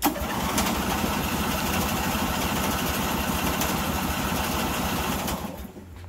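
Lawn mower engine cranking on its electric starter for a cold start with the choke on, turning over fast and steadily for about five and a half seconds, then stopping without catching.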